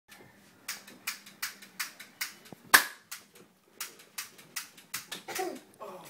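An even series of short, sharp clicks or taps, about three a second, with one much louder click a little before the three-second mark.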